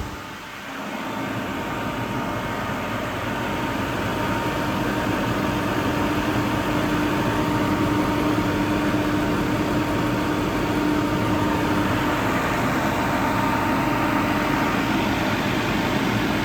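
22 kW Kaeser ASK 35 T rotary screw air compressor running steadily with its covers off: an even machine noise carrying two steady tones, one low and one higher.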